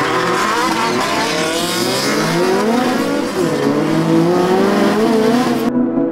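Engines of a Scion FR-S and a Honda S2000 accelerating hard from a rolling launch, their pitches climbing, dropping at each gear change and climbing again, overlapping each other. Near the end the engine noise cuts off abruptly, leaving a low steady gong-like tone.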